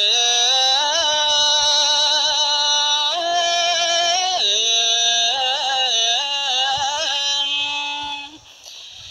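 A single voice singing a slow Buddhist devotional chant in long held notes that step up and down in pitch, breaking off about eight seconds in.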